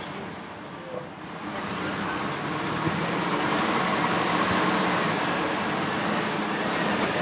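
Hitachi ZX870 excavator's diesel engine and hydraulics working up under load as the boom comes down and the bucket digs in. The sound builds over about a second and a half, with a thin whine rising in pitch, then holds steady at full working load.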